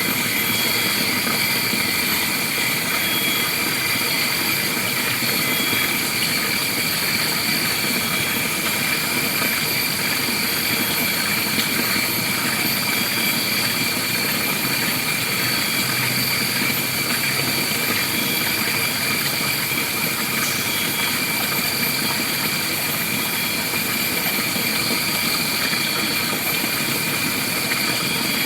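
Steady forest ambience: a continuous dense drone with several unchanging high-pitched whines layered over it.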